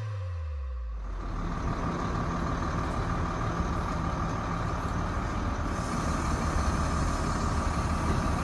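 Truck-mounted crane's diesel engine running steadily under load, with a constant low hum and a steady high whine, as the crane lifts the boat on slings.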